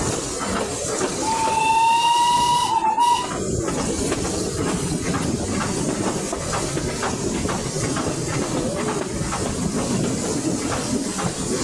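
Steam locomotive whistle sounding once for about two seconds, its pitch rising slightly before it cuts off. Under it is the steady running noise and hiss of the train, with a regular clicking from the rails.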